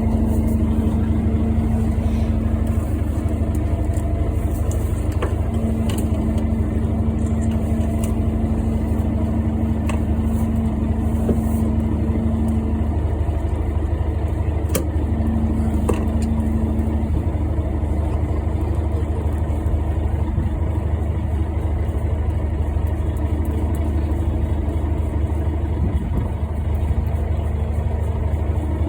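Fishing boat's engine running steadily at idle, a low hum with a higher tone that fades in and out, and a few faint clicks over it.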